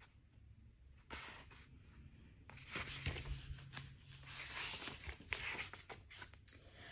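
Paperback book pages rustling as the book is handled and its pages thumbed through: a short rustle about a second in, then a longer run of irregular page rustles from about two and a half seconds in.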